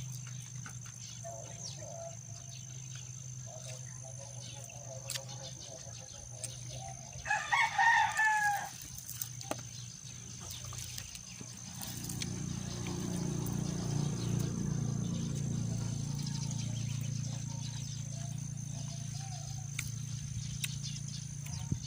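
A rooster crowing once, about seven seconds in. Rain grows louder from about twelve seconds on.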